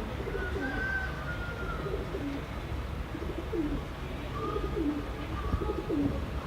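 Domestic pigeons cooing, a run of short falling coos every half second or so, over a steady low rumble of wind on the microphone.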